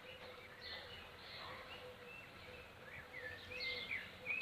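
Small birds chirping and twittering, busier and louder near the end, over a faint steady hum from a swarm of honeybees.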